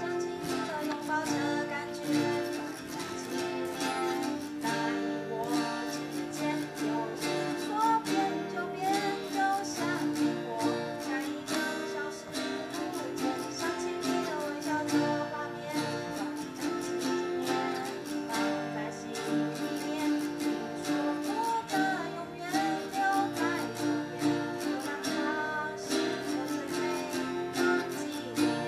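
Two acoustic guitars strumming in steady rhythm while a girl sings the melody into a microphone.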